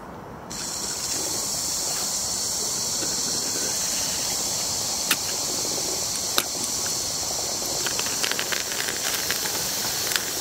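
Steady steam hiss from a Stuart 10H model steam engine as steam is turned on about half a second in, while the engine is being started. A few sharp clicks, then a quick run of clicks near the end.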